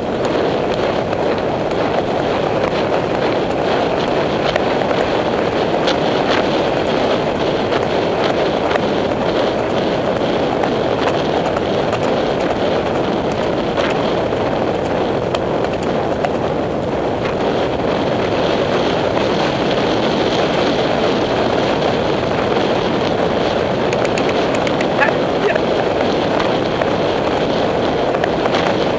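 Steady wind rush on the microphone of a rider's camera, with no breaks, from a horse moving fast.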